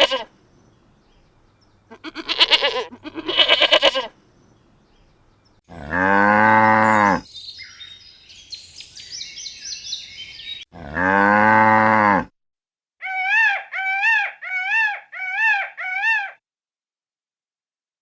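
A string of farm animal calls: two short trembling bleats, then two long low cow moos with a clattering noise between them, then five short high calls in quick succession.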